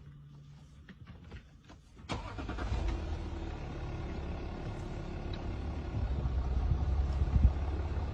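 A vehicle engine starts about two seconds in and keeps running steadily, a little louder near the end.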